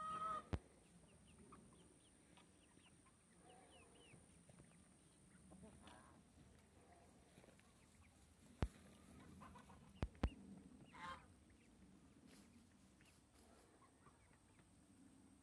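Young Dorking chickens softly peeping and calling as they forage, with a louder pitched call right at the start and a short burst of calling about two-thirds of the way through. A few sharp clicks break in now and then.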